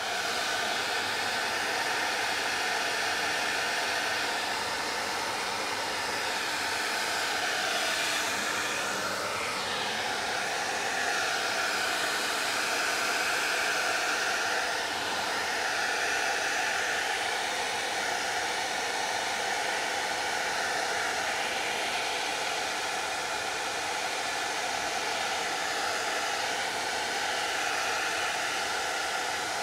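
Handheld hair dryer running steadily on high heat, a constant rush of air with a faint motor whine, blowing onto a canvas to melt crayon wax. Its tone wavers briefly about nine seconds in.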